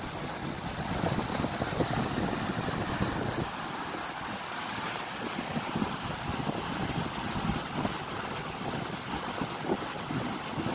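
Fast muddy floodwater rushing and churning in a steady roar of water, with wind buffeting the microphone.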